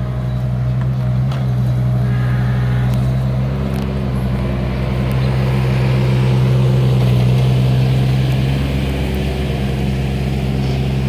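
Kubota U17 mini excavator's diesel engine running steadily at working speed, a constant low drone while it digs.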